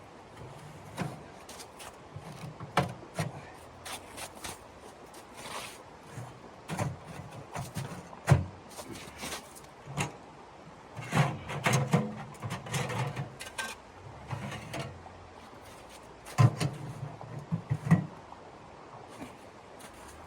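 Irregular knocks, clicks and soft thuds of things being handled, the sharpest about eight seconds in and again near the end.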